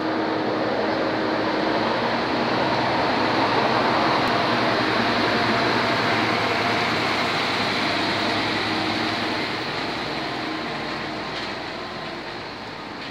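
Heavy flatbed semi-trailer truck coming down a steep hill, its engine and running gear a loud, steady noise that eases off a little near the end.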